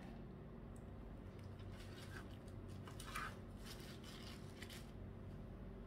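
Knife slicing through a log of rolled hopia pastry dough on a plastic sheet: a few faint scraping, rustling strokes, the loudest a little past three seconds in, over a low steady hum.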